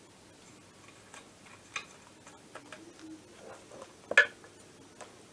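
Small metal engine parts and hand tools being handled on a workbench: a scatter of light clicks and taps, with one louder knock just after four seconds in.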